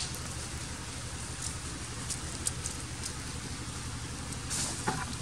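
Dry fallen leaves crackling and rustling underfoot in short scattered bursts, with a denser patch near the end. Under them runs a steady low rumble.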